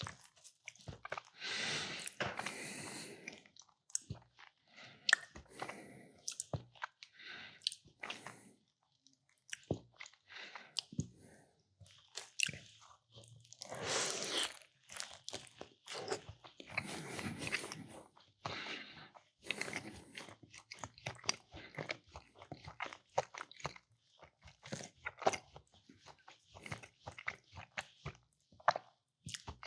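Close-miked chewing and biting of meatball and mac and cheese: an irregular run of wet mouth clicks and crunches, louder in a few stretches of heavier chewing.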